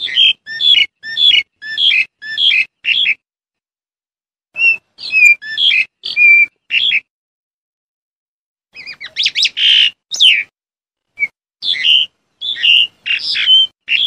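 Black-collared starling calling: loud groups of short, sharp notes, several a second, in four bouts with brief silent pauses between them. The third bout, near the middle, is a denser run of notes.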